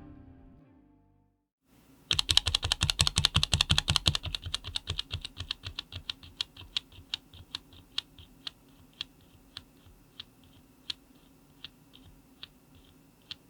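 Typing on an Amtelco KB163 mechanical keyboard with linear Cherry MX switches. A fast flurry of keystrokes about two seconds in slows to single key presses, roughly two a second, then to sparse separate strokes.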